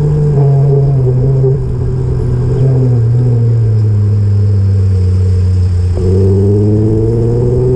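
Motor vehicle engine running close by, its pitch sinking slowly over the first few seconds and then climbing again from about six seconds in, as it slows and then speeds up.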